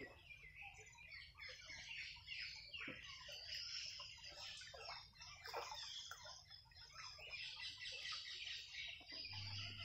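Faint, busy bird calls: many short chirps and clucks overlapping, with no pause.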